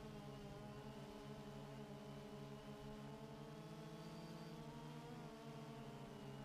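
Multirotor drone's motors and propellers humming steadily, the pitch wavering slightly and shifting a little about five seconds in.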